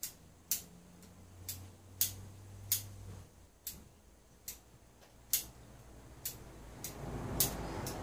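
Bonsai pruning shears snipping thin elm twigs: about a dozen short, sharp snips at uneven intervals, roughly one every half second to second. This is a quick trim of the branch tips to thin out the crown.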